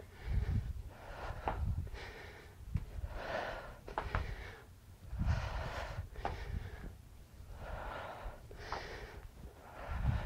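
A woman breathing hard during a dumbbell squat-and-leg-lift exercise: short, forceful breaths through the mouth and nose, roughly one a second in time with the reps. A few low thuds come with them.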